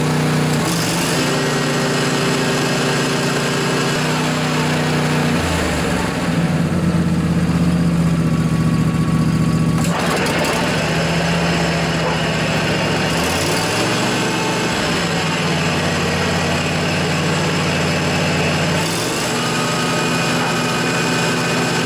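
John Deere LA145 riding mower's V-twin Briggs & Stratton Intek engine running with the deck being tested. The engine speed drops twice and comes back up. No abnormal bearing noise is audible: the freshly replaced deck bearings are running quietly.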